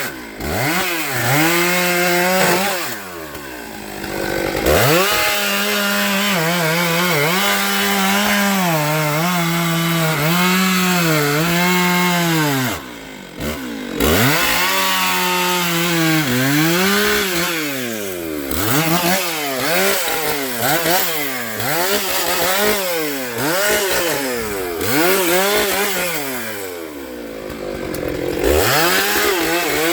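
Gasoline chainsaw running at high revs while cutting wood, its pitch sagging and recovering again and again under load. Later it is revved up and let fall repeatedly, about once a second.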